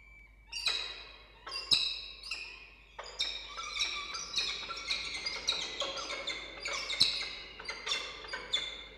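Peregrine falcons calling loudly and repeatedly in the nest box during a prey delivery to the downy chicks: a dense string of harsh calls with two sharp knocks, one near 2 s in and one near 7 s in.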